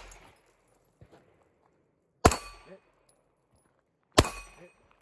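Two pistol shots about two seconds apart, fired at steel spinner paddle targets. Each shot is followed by a brief metallic ring.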